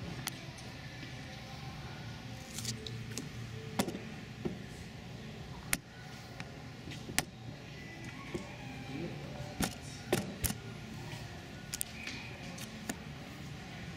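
Ice hockey rink ambience with play stopped: a steady hum from the arena, with scattered sharp clacks of hockey sticks and pucks on the ice and boards, and faint voices.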